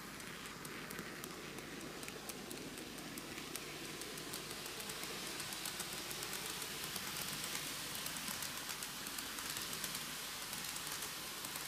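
Microace N-gauge Meitetsu KiHa 8000 series six-car model train running on track: a steady rattle of small wheels on the rails, thick with rapid fine clicks.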